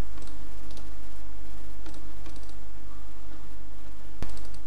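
A few computer mouse clicks, the sharpest about four seconds in, over a steady hiss with a low hum.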